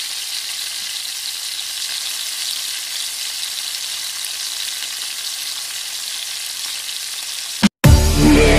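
Eggplant omelettes sizzling steadily as they shallow-fry in hot, bubbling oil in a wok. The sizzle cuts off suddenly near the end. Loud electronic music with a heavy bass beat then comes in.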